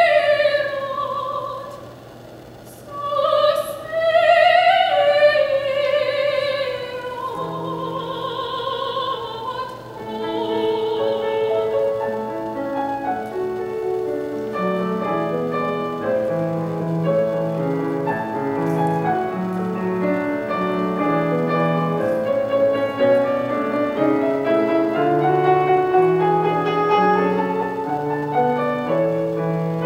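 Classical soprano singing with wide vibrato over grand piano accompaniment, with a brief pause for breath about two seconds in and a long held high note ending about eleven seconds in; the grand piano then plays on alone.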